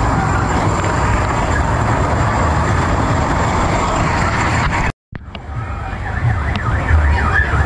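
Busy fairground din with warbling, siren-like electronic tones rising and falling over a steady low rumble. The sound cuts out for an instant about five seconds in, then comes back.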